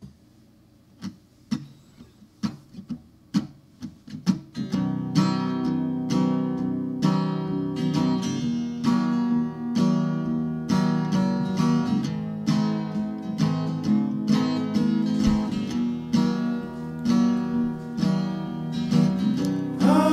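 Instrumental acoustic guitar music: a few separate plucked notes spaced out over the first four seconds or so, then a steady, continuous accompaniment of picked chords.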